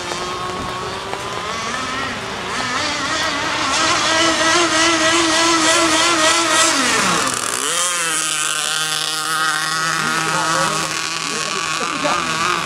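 Small high-revving engine of a radio-controlled catamaran drag boat running flat out as it speeds past, its whine growing louder. About seven seconds in the pitch drops sharply as it passes, then the engine runs on at a lower, steady pitch.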